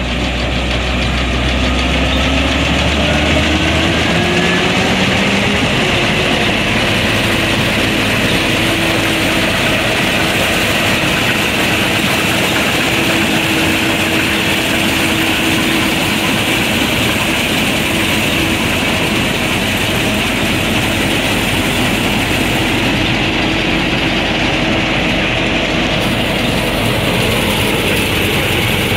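Case IH combine running, its engine note climbing over the first few seconds and then holding steady.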